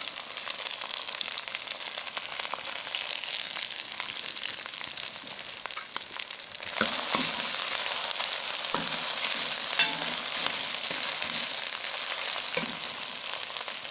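Chopped tomatoes sizzling in hot oil with fried onions in a metal pot. The sizzle grows louder about halfway through as the mixture is stirred, with a metal spoon knocking and scraping against the pot now and then.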